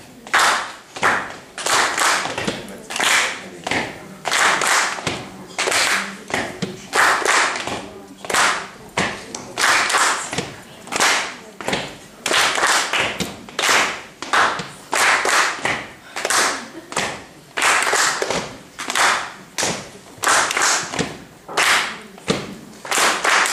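A group clapping hands and striking sticks in a steady unison rhythm, about two beats a second.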